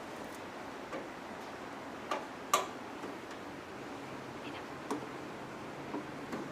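Scattered sharp clicks and knocks of computer parts being handled during disassembly, about six in all, the loudest about two and a half seconds in, over a steady hiss.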